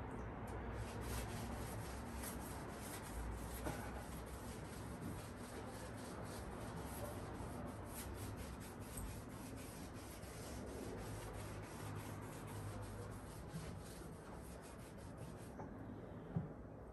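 A cloth being rubbed hard over a surface in quick, even back-and-forth scrubbing strokes, stopping shortly before the end, followed by a light knock.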